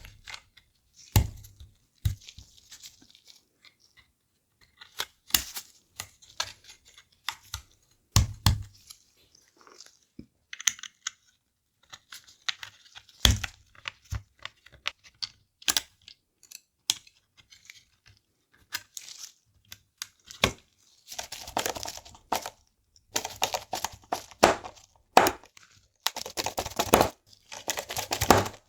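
Hands working on the plastic parts of a Nintendo DSi XL during reassembly into a new shell: scattered sharp clicks and taps, then, past the middle, a denser run of longer rustling, tearing-like scrapes.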